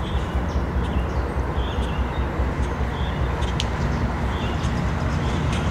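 Diesel locomotives of an approaching CSX freight train rumbling low and steady, growing slightly louder toward the end, with birds chirping.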